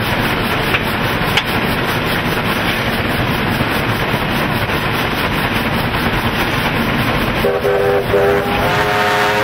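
Steady noisy roar of a steam locomotive heard from its cab while running at speed, with the firebox door open. About seven and a half seconds in, a steam locomotive's chime whistle sounds a chord. It breaks off briefly, then sounds again and holds.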